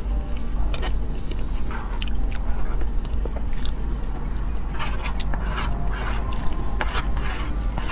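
Close-miked eating sounds: wet chewing and lip smacks on soft cream cake, with a metal spoon scraping and clicking against the plate, busiest in the second half. A steady low hum runs underneath.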